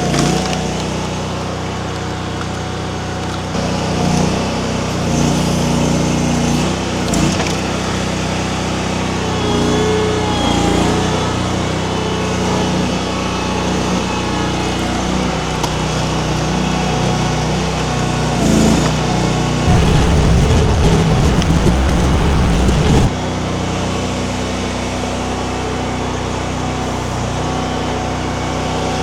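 Mini skid steer's small engine running steadily while it works a wood-splitter attachment. For about three seconds past the middle a loud, rough low rumble rises over it and then cuts off suddenly.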